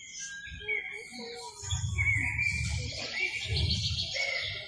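Birdsong sound effect played over a loudspeaker system: a string of short whistled chirps and trills, with a few soft low thumps underneath.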